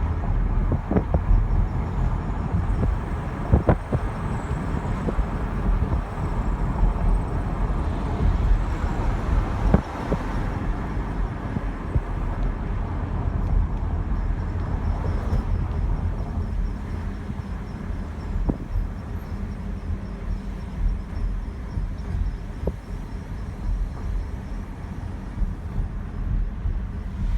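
2014 Chevrolet Camaro on the move, with road and tyre rumble and a faint, high chirp that repeats evenly in step with the wheel rotation, whether braking, turning or accelerating. The chirp is clearest in the second half. A few sharp knocks come in the first part.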